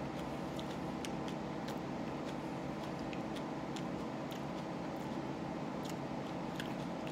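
Irregular small mouth clicks of someone chewing a jalapeño pepper, over a steady background noise.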